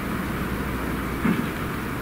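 Air compressor running steadily with a low motor hum while a tubeless mountain-bike tyre is being inflated. A brief knock comes about a second and a quarter in.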